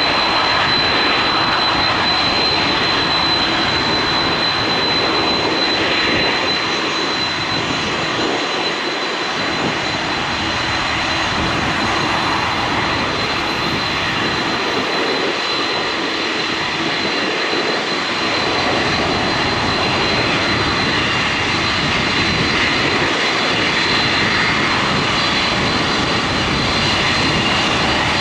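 Four jet engines of a Boeing 747-400 freighter running: a loud, steady jet noise with a constant high whine over it.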